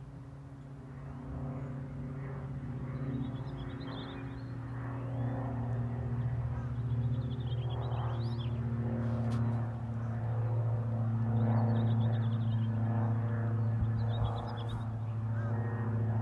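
Light propeller aircraft flying low overhead, its engine and propeller drone a steady low hum that grows louder as it comes closer. Small birds chirp over it every few seconds.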